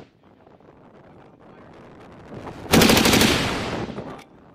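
A belt-fed machine gun firing one short burst of automatic fire about three seconds in, a rapid even run of shots that trails off in echo.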